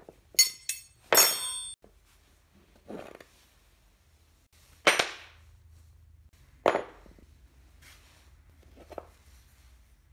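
Steel open-end wrenches clinking and ringing as they are put down on a wooden workbench, with quick clicks and a metallic ring about a second in. Then several separate knocks as metal parts are set down and handled on the wood.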